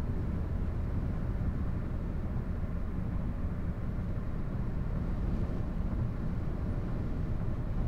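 Steady low rumble of a car driving along a road, heard from inside the cabin: an even mix of engine and road noise with no distinct tone.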